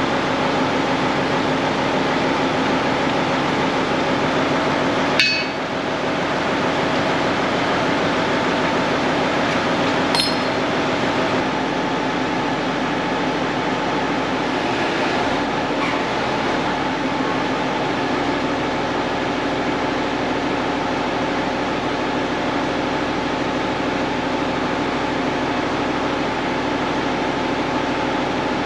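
Case 1070 tractor's six-cylinder diesel engine running steadily, with two sharp metallic clanks about five and ten seconds in.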